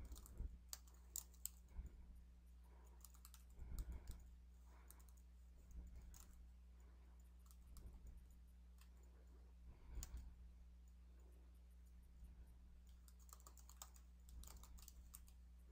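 Faint typing on a computer keyboard, keys tapped in short irregular clusters, over a steady low hum.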